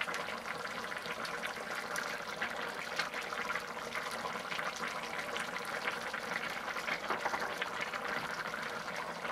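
Nearly done pilaf of rice and pork simmering in broth in a small cast-iron pot, bubbling steadily with many small pops and crackles.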